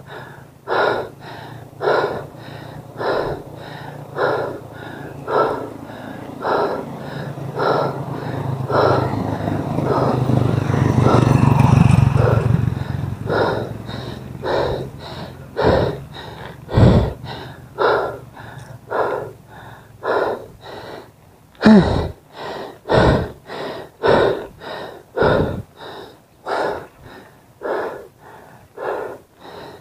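A cyclist's hard, even breathing while pedalling a mountain bike, quick puffs about three every two seconds. A motor vehicle passes, its engine swelling up about a third of the way in and fading again a few seconds later.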